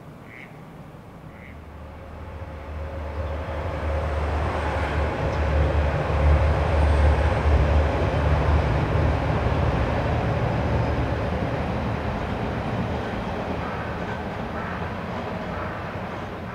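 A train passing on the line: a deep rumble with rail and wheel noise builds over a few seconds, peaks midway, then slowly fades away.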